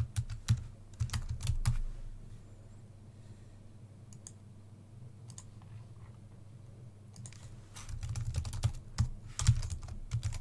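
Computer keyboard being typed on in two bursts of quick key clicks: one at the start, and another from about seven and a half seconds in, with a quiet pause between.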